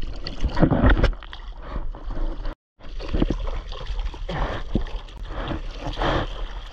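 Sea water splashing and sloshing close to a surfboard-mounted camera as a surfer paddles, with irregular louder splashes from arm strokes. The sound cuts out completely for a moment about two and a half seconds in.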